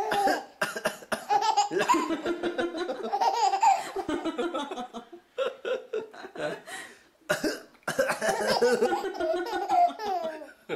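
A baby laughing hard in long fits of rapid, pulsing laughs, with short coughs mixed in that set the laughter off.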